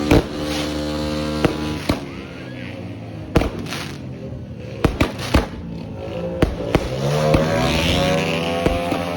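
Fireworks going off from a multi-shot fireworks cake: about a dozen sharp bangs at irregular intervals, several close together in the middle. Under them runs a steady pitched background sound that slides in pitch near the end.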